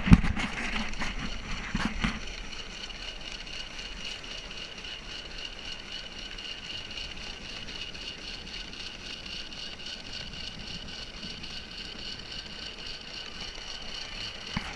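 5-inch gauge coal-fired Martin Evans Simplex steam locomotive under way, chuffing evenly with a steady high hiss over it, worked a little harder for a gentle climb. A loud knock comes right at the start.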